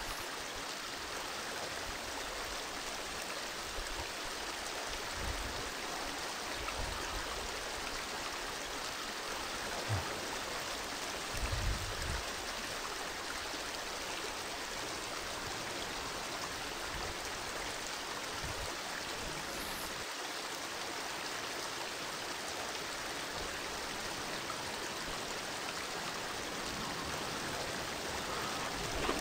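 Steady rush of flowing river water, an even hiss, with a few brief low rumbles around ten to twelve seconds in.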